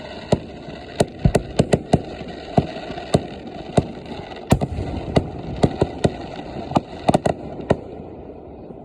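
Fireworks going off in a rapid, irregular string of sharp bangs, about two dozen in all, that stops near the end.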